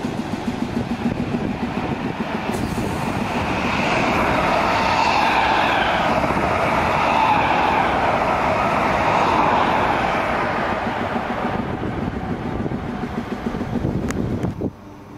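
Electric multiple-unit trains running through a station: a Class 315 moving along the platform line while a second train passes at speed on the adjacent track. The wheel and motor noise swells to a peak in the middle with a falling whine, then cuts off suddenly near the end.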